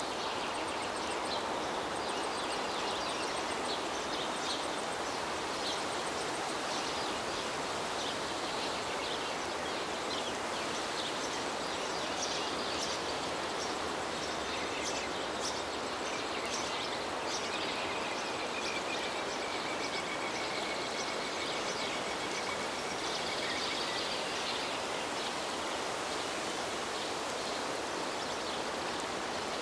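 Flowing river water, a steady rushing, with small birds chirping in short, high calls over it.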